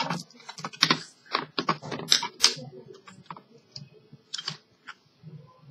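A run of irregular clicks and taps, quick and close together for the first few seconds, then fewer and further apart.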